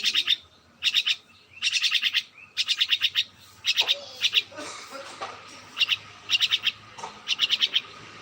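A small bird chirping in quick bursts of several sharp, high notes, the bursts repeating about once a second with a brief pause midway.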